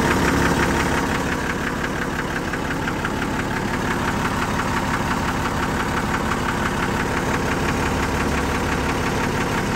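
Unimog 416's six-cylinder diesel engine idling steadily.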